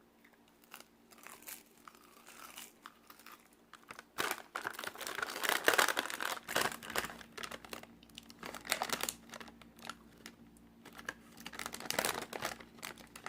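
Crinkly plastic snack packet being handled and turned over, crackling on and off, loudest from about four to seven seconds in and again near the end.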